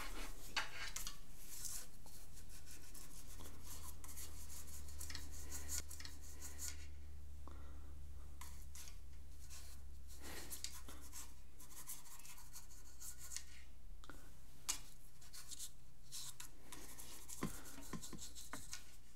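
A dog's fur brushing and rubbing across paper close to the microphone: irregular scratchy rustling, over a low steady hum that drops a little about six seconds in.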